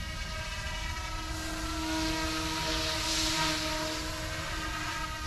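Whine of an RC scale helicopter's direct-drive brushless motor and rotor in flight overhead, several steady tones at once, swelling louder with a rushing hiss about two seconds in and easing back about a second later. Wind rumbles on the microphone underneath.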